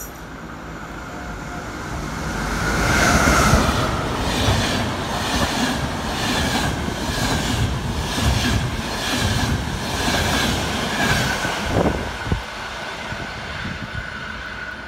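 Locomotive-hauled passenger express passing close by along the platform. The sound builds over the first few seconds as the locomotive comes past. The coaches then roll by with a regular clatter of wheels over the rail joints, about two a second, under a thin steady whine, and it all drops away near the end.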